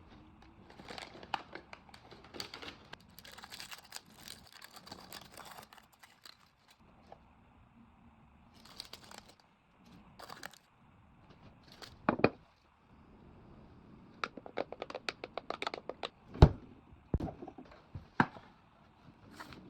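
Handling noises from food preparation: crinkling and rustling, scraping, and scattered sharp knocks and clicks, the loudest a knock about two-thirds of the way through.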